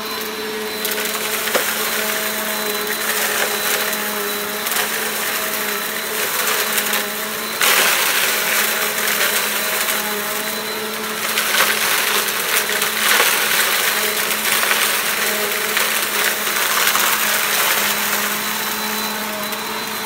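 Compact bagless upright vacuum cleaner running with a steady motor hum and high whine, pushed over a pile of dry debris on carpet with a crunchy crackle of grit being drawn in, louder from about eight seconds in. The small machine picks the big chunks up only slowly.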